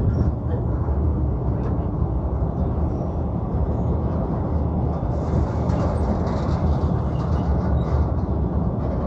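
Passenger train running across a steel railway bridge, heard from inside a carriage: a steady low rumble of wheels and carriage.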